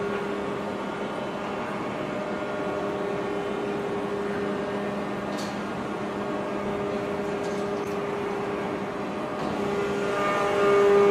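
Heavy forge-shop machinery humming steadily, with several held tones over a rushing noise. There is a faint click about five seconds in, and the hum swells louder near the end.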